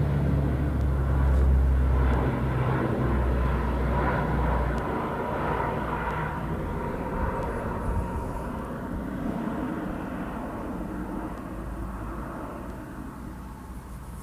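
Large airplane flying over, its engine drone loud at first and fading steadily as it moves away.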